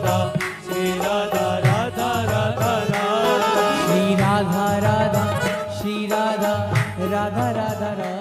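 Background music: a singing voice over a steady drone and percussion.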